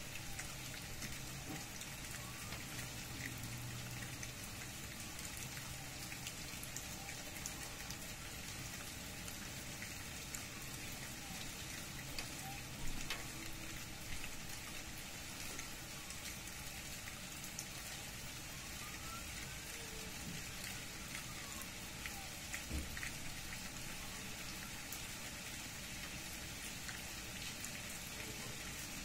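Steady rain falling, with many separate drops ticking and a few louder drips standing out.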